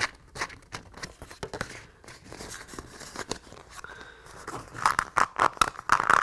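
A flexible liner sheet from a model viaduct kit crackling and rustling as it is kneaded and rolled tight between the hands, with irregular clicks that grow busier and louder near the end.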